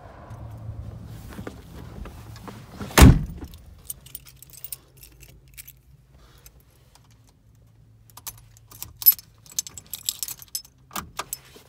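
A 1936 Ford sedan's door shut with one heavy thud about three seconds in. Near the end a key ring jangles and clicks as the key is fitted into the dashboard ignition switch.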